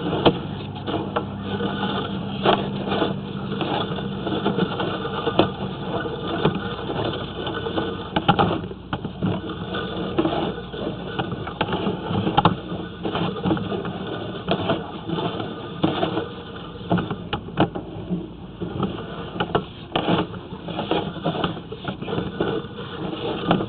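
Sewer jetting machine's engine running steadily, with irregular clicks and knocks over it.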